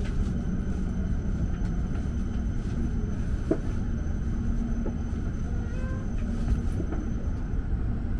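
Steady low rumble of a shinkansen station platform with an E7 series train standing at it. A faint, thin, high steady tone runs through most of it and stops near the end.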